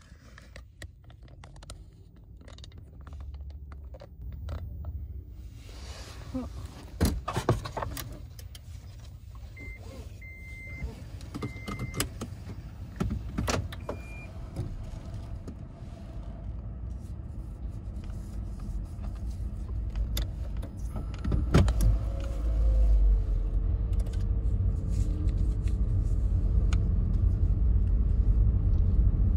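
Car interior: scattered clicks and a few short electronic beeps, then about two-thirds of the way through a sharp click and the car's engine running with a loud, steady low rumble.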